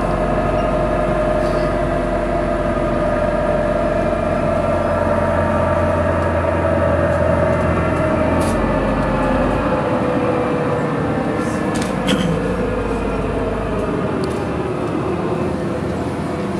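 Riding inside a moving bus: steady engine and road rumble with a whine that holds level, then slowly drops in pitch through the second half as the bus changes speed. A few light rattles come in around the middle.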